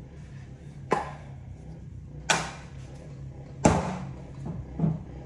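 Three short, sharp knocks or clacks about a second and a half apart, the last two trailing off briefly, over a low steady hum.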